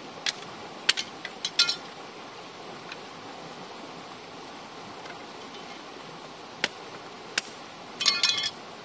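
Sharp knocks and clinks of hard objects over a steady background hiss: a quick cluster at first, two lone knocks later, then a ringing rattle of several clinks near the end.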